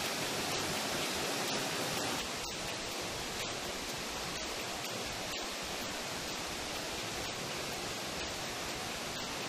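Steady rush of water falling down a rock face, a little quieter after about two seconds.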